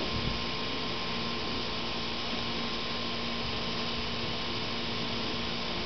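Steady background hum with hiss, a few even tones held throughout; no dog sounds.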